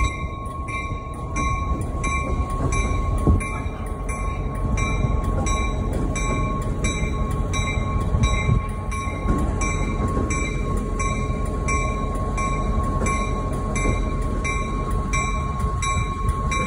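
CSX diesel locomotive running slowly in street trackage, its engine rumbling low under a bell ringing steadily at about two strokes a second.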